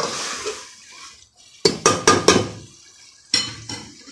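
Metal ladle scraping and knocking against the sides of an aluminium cooking pot while stirring mutton and spices: a scrape at the start, four quick knocks about a second and a half in, and one more ringing knock near the end.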